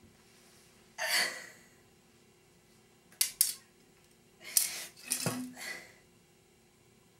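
A young woman sobbing: gasping, breathy sobs in short bursts, one about a second in, two sharp catches a little past three seconds, and a longer cluster around five seconds with a brief whimper.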